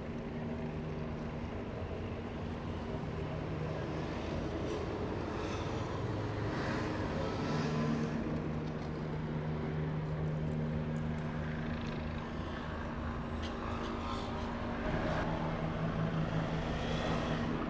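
Bell 429 GlobalRanger twin-turbine helicopter hovering and moving low over the ground, giving a steady rotor and engine drone with a steady low hum.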